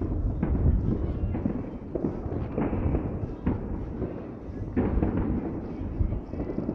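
Many fireworks going off at once at a distance: a continuous low rumble of booms and bangs, with sharper individual reports standing out about once a second.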